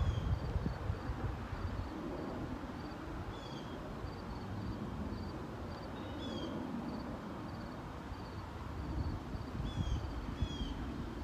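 Outdoor ambience: wind rumbling on the microphone, a steady run of short high chirps about twice a second, and a bird giving a short falling call five times. A few soft thumps at the start.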